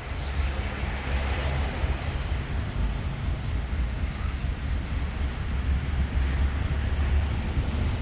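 ChME3 shunting diesel locomotive's engine running with a deep, steady rumble, over a broad rushing noise.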